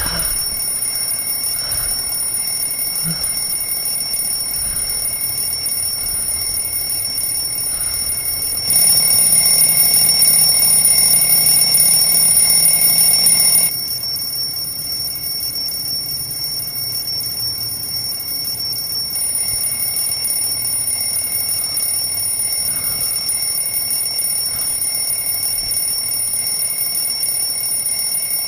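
Alarm clock ringing without a break, a steady high ring that grows louder for about five seconds around a third of the way in, then drops back.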